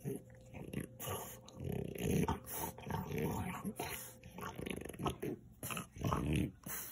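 French bulldog chewing a knotted rope toy with a tennis ball, growling in short, irregular bursts as it chews.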